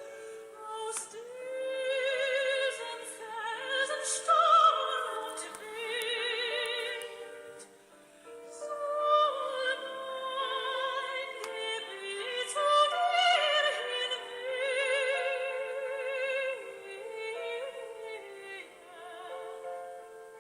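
Music: operatic singing in a high voice with strong vibrato, holding long notes.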